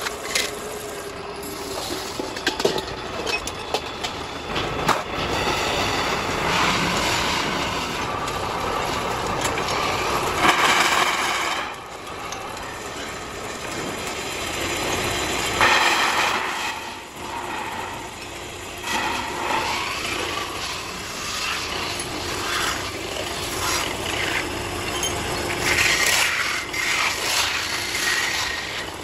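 Belt-driven metal-spinning lathe running as a metal bowl blank spins. Long hand-held spinning bars pressed against the metal make a rasping scrape that swells louder several times.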